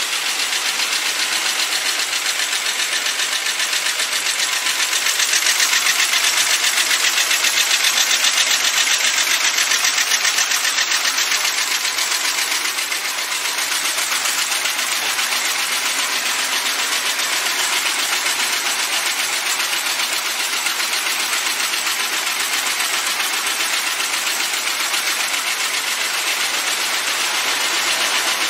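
Automatic three-piece food can body making line running: a dense, rapid mechanical clatter of the forming and welding machinery and can-body conveyors, steady throughout and somewhat louder for a few seconds near the middle.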